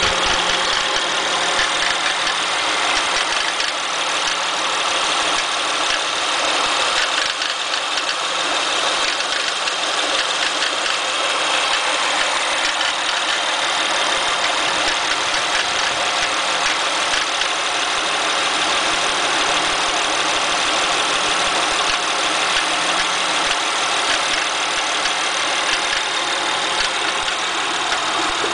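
Acura TL engine idling with a steady, even strange noise from the engine bay, which the owner cannot account for.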